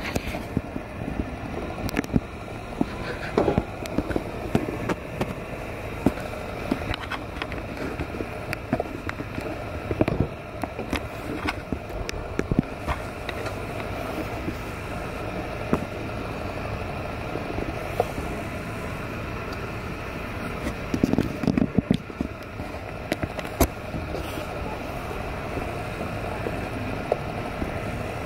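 Steady hum of street traffic, with scattered short clicks and knocks throughout and a brief cluster of them about three-quarters of the way through.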